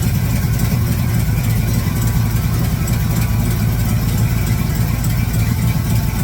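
Big-block Chevrolet V8 in a 1966 Impala idling steadily while it warms up to operating temperature.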